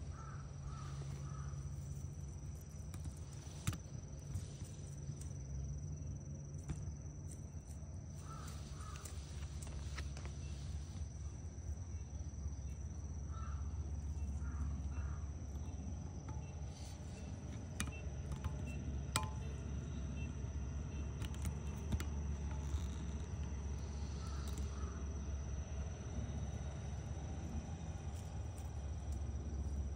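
Outdoor insect chorus: one steady high-pitched insect trill over a low steady rumble, with short bird calls in groups of two or three heard a few times.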